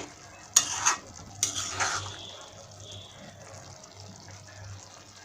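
Spatula stirring chili chicken and its sauce in a pan: two loud scrapes in the first two seconds, then a steady low hiss of the sauce cooking.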